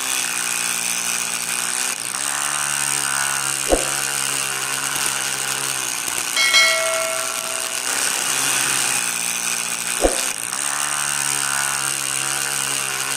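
Small electric motor spinning a miniature disc saw blade, running with a steady whine whose pitch shifts about two seconds in and again near ten seconds. Sharp clicks about four and ten seconds in, and a short bell-like chime about six and a half seconds in.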